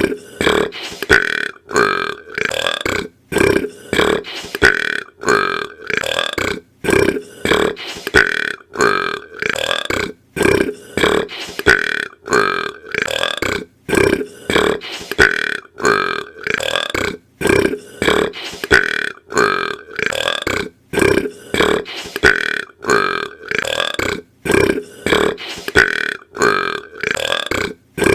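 A boy burping over and over, short burps following one another in quick succession with only brief gaps between them.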